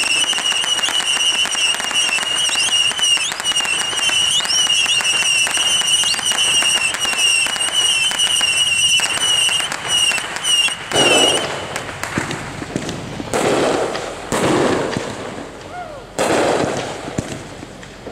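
Consumer fireworks going off. A steady high-pitched whistle runs over dense crackling for about the first eleven seconds, then cuts off suddenly. It is followed by four separate bangs a second or two apart.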